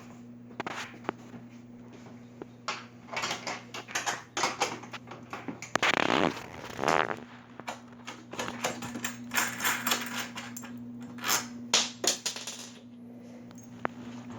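A 1/2-inch speed wrench working a nut off a carriage bolt on a wooden frame, with irregular metallic clicks and clinks and handling knocks that come in clusters.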